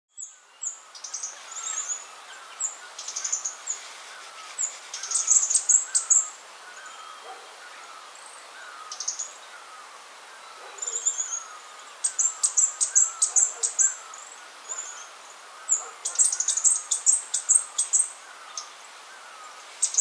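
Fire-breasted flowerpecker singing: thin, very high-pitched notes, many in quick runs of ticks, coming in several bouts. Under it, a fainter, lower bird call repeats steadily.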